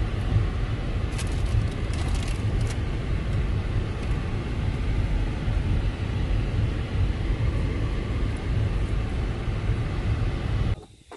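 Car driving slowly over a timber plank bridge deck, heard from inside the cabin: a steady low rumble of tyres on the boards, with a few light clicks and rattles a second or two in. The sound cuts off suddenly near the end.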